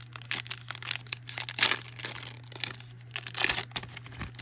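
A trading-card pack wrapper being torn open and crinkled, heard as a run of irregular crackling rips, loudest near the middle and again about three-quarters through. A steady low electrical hum runs underneath.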